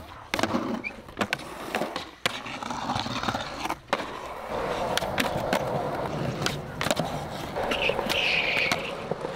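Skateboard wheels rolling over a concrete skatepark, with repeated sharp clacks of the board striking the ground and a short scrape about eight seconds in.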